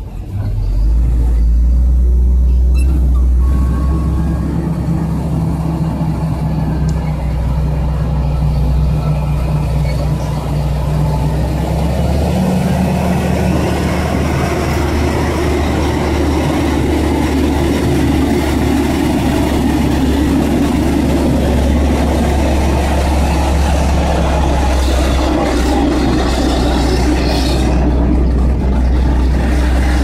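Caterpillar 140K motor grader's diesel engine running steadily under load while its moldboard cuts along a sand bank, a constant low drone with the scraping rush of sand along the blade growing stronger from about twelve seconds in.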